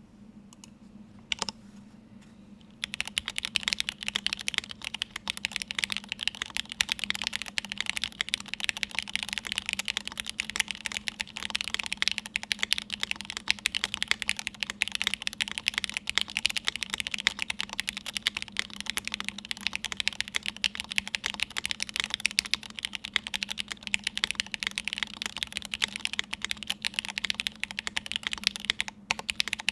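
Typing on a Cake60 mechanical keyboard with lubed Gateron X linear switches on 55 g long springs, a half FR4 plate and GMK keycaps. A single keystroke comes about a second in, then continuous fast typing starts about three seconds in.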